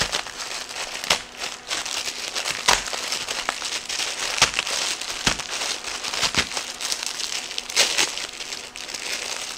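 Plastic Maruchan ramen packets crinkling and crackling in the hands while the dry noodle blocks inside are broken up, with irregular sharp snaps of the brittle noodles; near the end one packet is being pulled open.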